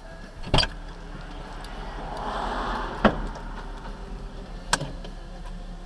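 Three sharp knocks, the second coming about two and a half seconds after the first and the third about one and a half seconds later, over a low steady hum, with a short rushing noise just before the second knock.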